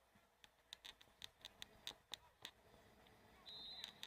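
Near silence with faint, scattered sharp clicks, a few a second, and a brief thin high tone near the end.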